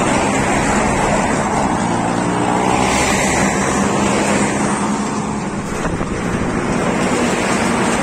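Heavy truck engine running as traffic goes by on the highway, with a hiss of tyres swelling and fading around the middle. Wind buffets the microphone throughout.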